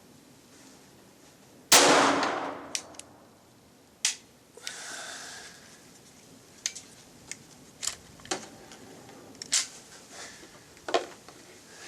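A single shot from a .22 LR Glock conversion pistol about two seconds in, ringing off the range walls, followed by a string of quieter sharp metallic clicks and clacks from the pistol's action, which the shooter believes marks a light primer strike.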